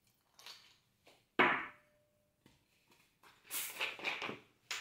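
Ice cubes tipped from a bowl into a stainless steel tumbler: a light knock, then one sharp clink with a brief metallic ring. Near the end, a second or so of crackling clatter as a plastic soda bottle is handled.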